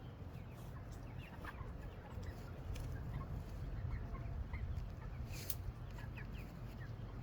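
A flock of meat chickens clucking softly, with many short, scattered calls. There is one sharp click about five and a half seconds in.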